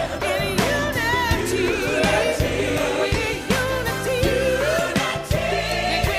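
A gospel-style song: voices sing sustained, wavering lines over a band with a steady drum beat and bass.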